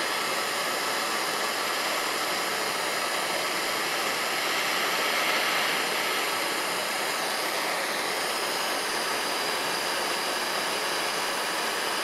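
Handheld gas torch burning with a steady hiss, its blue flame heating a copper ring terminal so that solder melts into the crimped battery cable.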